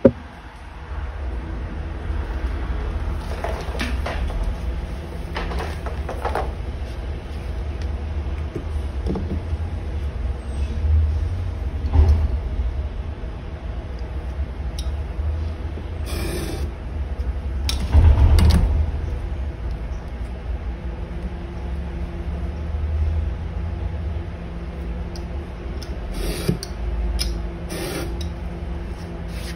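Knife drawn along a steel ruler, cutting thin strips from leather on a cutting mat: a few short scraping strokes over a steady low hum.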